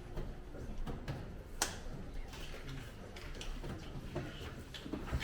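Scattered sharp clicks and taps from play at a draughts board, the loudest about one and a half seconds in, over a low steady room hum.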